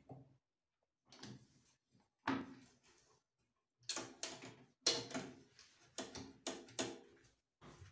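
Clicks, knocks and clatter from an Electrolux top-loading washing machine's drum and lid being handled by hand, with a quick run of sharp clicks in the second half.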